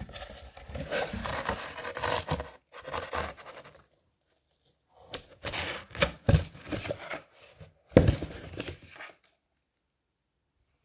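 Cardboard box scraping and rustling as its flaps are handled and folded shut, in two stretches with a pause between, with two sharp thumps in the second stretch.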